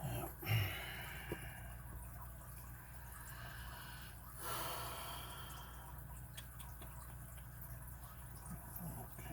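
A person breathing out heavily twice, each breath lasting about a second, with a dull bump just after the first and a few faint small clicks from handling the lock picking tools.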